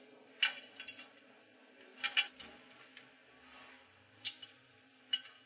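Sharp metallic clicks and clinks, a few small clusters at irregular intervals, from nuts and a wrench on the studs that join a Grundfos SP submersible pump to its motor as the nuts are fitted and tightened.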